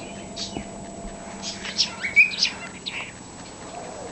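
Cockatiel chirping: a few short scattered chirps, with one whistled note that rises and then holds, about two seconds in.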